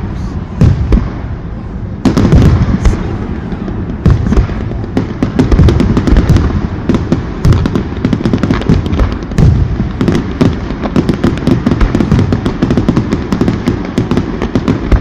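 Fireworks display going off: repeated loud booms of bursting shells mixed with sharp bangs and crackles, the crackling growing denser and faster in the second half.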